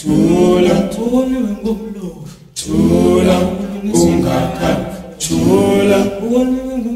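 A cappella vocal music: voices singing without instruments, in held, sung phrases with a short break about two and a half seconds in.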